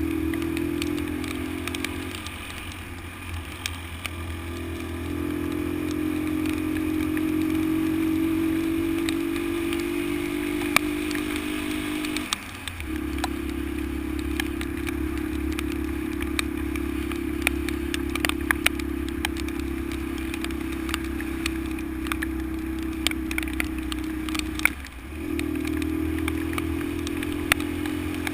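Honda XL125's single-cylinder four-stroke engine running steadily under way, its note dropping out briefly three times, about 3, 12 and 25 seconds in, as the throttle is eased. Scattered sharp clicks and rattles from the bike jolting over rough ground.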